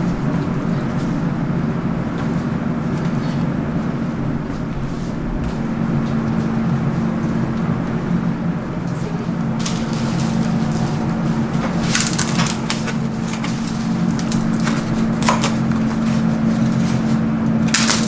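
Steady low machine hum of a commercial kitchen, with light crackling and clicks as dabeli buns are filled and handled in foam takeaway boxes, busiest about two thirds in and again near the end.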